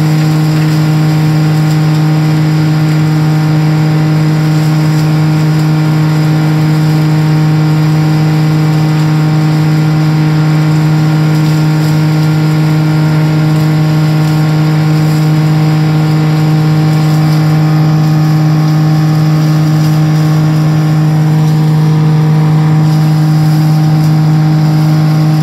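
Vermeer CPX 9000 bale processor grinding cornstalks and blowing them out, driven by a John Deere 6125R tractor: a loud, steady drone with one strong low hum that holds unchanged throughout.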